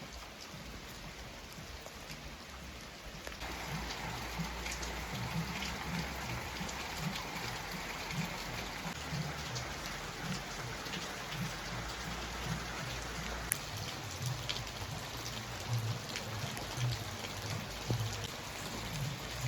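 Steady rain falling, with many separate drops ticking on hard surfaces. It gets louder about three seconds in.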